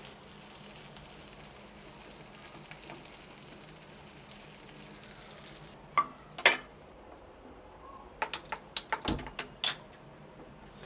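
Chicken shami kababs shallow-frying in oil on a flat tawa, a steady sizzle. About six seconds in the sizzle cuts off abruptly, and a scatter of sharp clicks and taps follows.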